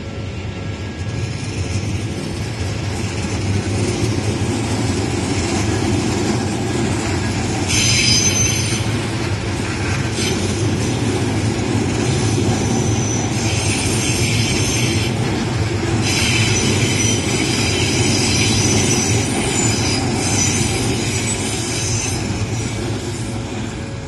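Odakyu 30000 series EXE Romancecar train passing over a level crossing, its running noise building over the first few seconds. Its wheels squeal on the rails in repeated high-pitched bursts, longest near the middle and into the second half. The crossing bell's steady ringing shows faintly underneath.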